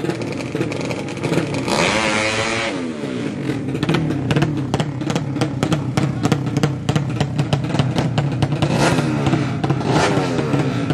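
200cc drag bike engine blipped about two seconds in, then running at a rough, uneven idle with a rapid crackle from the open exhaust, and revved up again near the end.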